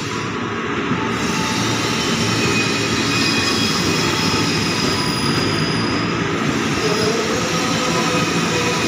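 Electric commuter train rolling along the platform at close range: a steady wheel and motor rumble with thin, steady high whining tones above it, growing a little louder over the first few seconds.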